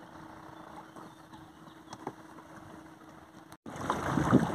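Light water lapping against an inflatable boat with a faint steady hum. Near the end the sound cuts out briefly, then comes back much louder, with wind buffeting the microphone and water slapping the hull.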